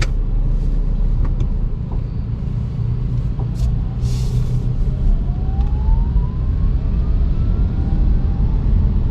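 Road and tyre rumble inside a VinFast VF5 electric car, with the electric motor's whine rising steadily in pitch from about halfway through as the car speeds up. There is a brief hiss about four seconds in.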